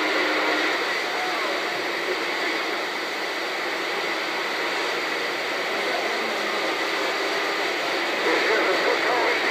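Steady rushing hiss, with faint, indistinct voices under it that come up a little near the end.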